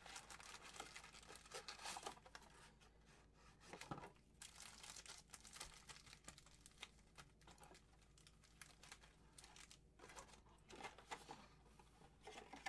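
Faint crinkling and tearing of plastic wrap as trading-card packaging is opened by hand, coming in scattered spells of crackle.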